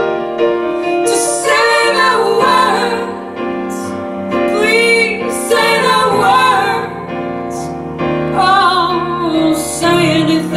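A slow ballad played back over the room's Manger S1 floor-standing loudspeakers: a woman sings long, wavering held notes over piano.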